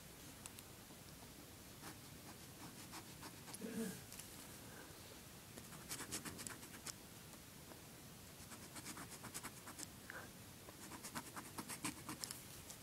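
Faint scratching of a pen tip on paper while colouring in, in runs of quick short strokes about six, nine and eleven seconds in. A brief low hum a little before four seconds in.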